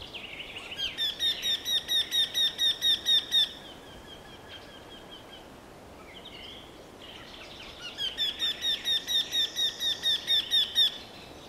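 Eurasian wryneck singing: two series of about fourteen quickly repeated notes, roughly five a second, each series growing louder toward its end. The second series starts about two thirds of the way through, and fainter bird notes fall between the two.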